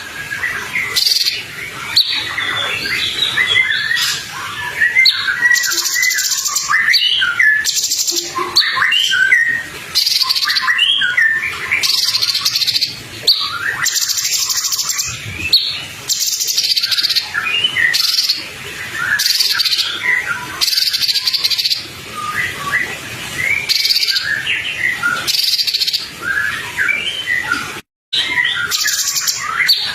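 Songbird song: a dense, fast stream of short chirps and whistles, mixed with repeated bursts of high, hissy buzzing. The sound cuts out for a moment near the end.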